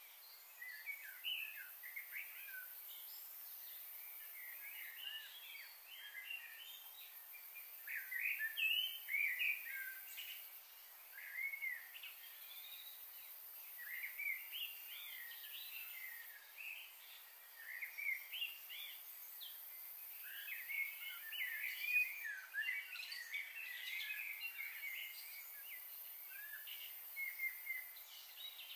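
Small birds chirping in many short, quick calls, busiest about eight seconds in and again from about twenty seconds, over a faint steady hiss.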